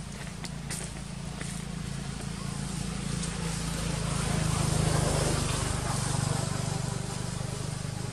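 Low engine rumble of a passing motor vehicle, growing louder to a peak about five seconds in, then fading away.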